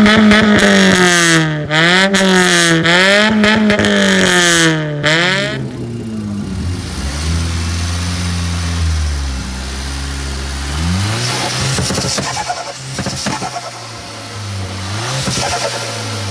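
A performance car's engine revved hard over and over, about once a second, then dropping after about five seconds to a lower, quieter note with a couple of smaller revs. A short cluster of sharp cracks comes about twelve seconds in.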